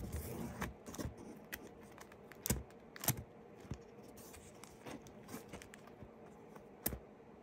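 Comic books being handled and shuffled through in a storage box: light rustling with scattered sharp clicks and taps. The loudest come a few seconds in and once near the end.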